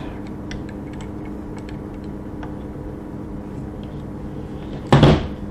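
Faint metallic clicks and ticks as the screw-on rear grenade sight of a Polish grenade-launching AK is turned off its mount, over a steady low hum. A brief voice sound comes near the end.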